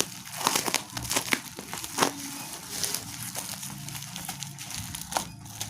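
Thick parcel wrapping being pulled apart and unwrapped by hand, with irregular crinkling and crackling.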